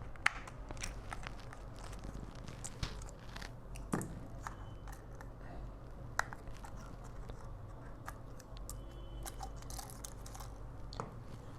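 Scattered small clicks and taps from handling an iPhone X and repair tools on a workbench, over a faint steady low hum.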